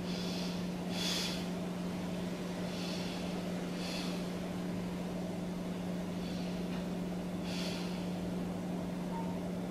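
A woman's soft breathing while she holds a yoga balance pose: a breath about every second at first, then more spaced out, over a steady low hum.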